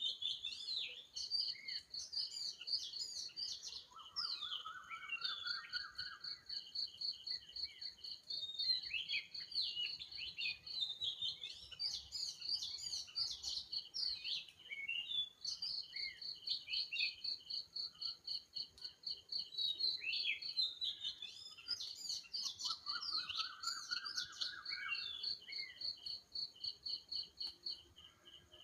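Several birds chirping and calling together, with fast, even trills and short twittering notes, and a rising buzzy call heard twice.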